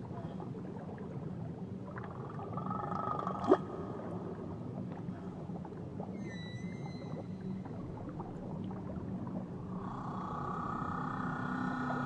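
Whale song recorded underwater: long drawn-out calls, and about halfway a higher, whistle-like call with several stacked pitches, over a steady underwater hiss. A single sharp click comes about three and a half seconds in.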